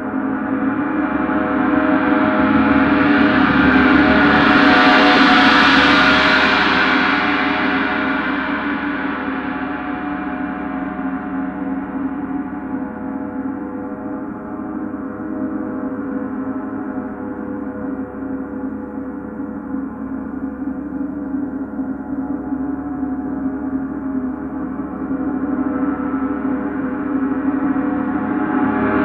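Gong played continuously in a gong bath: a sustained wash of many overlapping ringing tones that swells to a peak about five seconds in, eases off, and builds again near the end.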